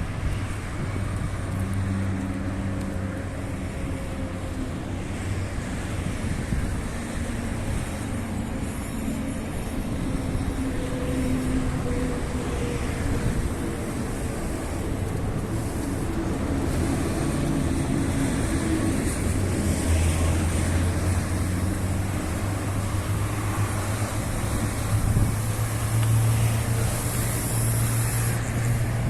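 Motor-vehicle traffic: engines running with a low hum that grows stronger in the last third, over a steady wash of road noise and wind on the microphone.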